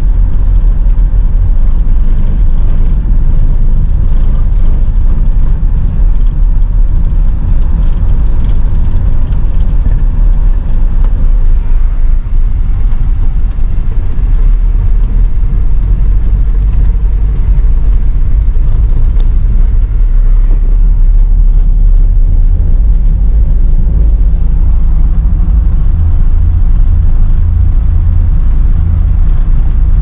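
Inside a car's cabin while driving slowly over a brick-paver road: a loud, steady low rumble of tyres and engine.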